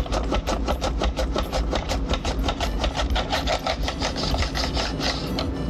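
A potato being sliced thin on a plastic mandoline slicer: quick, even back-and-forth scraping strokes, about four a second, stopping shortly before the end.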